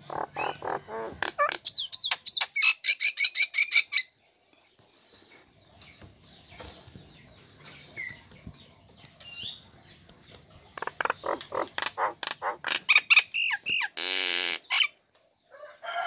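Female common myna (jalak nias) calling loudly in a rapid string of chattering and whistled notes for about four seconds. After a quieter stretch comes a second burst of quick notes that ends in a harsh, rasping screech.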